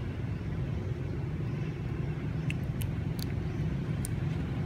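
A steady low rumble, with a few short faint clicks about halfway through.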